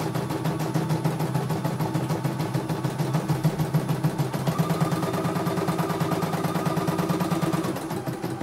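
CNY E900 computerised embroidery machine stitching a design: a steady motor hum with rapid, even needle strokes as the hoop carriage moves the fabric. A higher whine joins about halfway through and stops shortly before the end, when the machine runs a little quieter.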